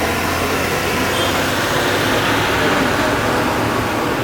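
Jet airliner engines running: a loud, steady rushing noise that swells slightly in the second half.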